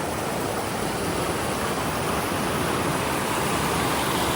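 A fast-flowing river rushing, a steady even roar of water.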